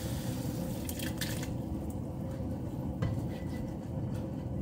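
Wet vegetable sofrito being scraped out of a non-stick frying pan with a silicone spatula and sliding into a pressure cooker, with soft squishing and dripping and a few light clicks of pan and spatula against the pot, about a second in and again about three seconds in. A steady low rumble runs underneath.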